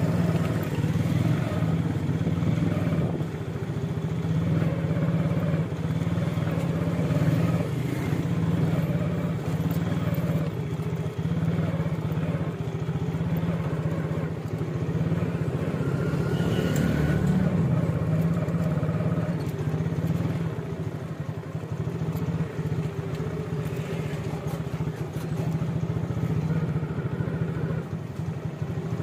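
Street traffic dominated by a steady engine drone, with a motorcycle engine prominent among the passing vehicles.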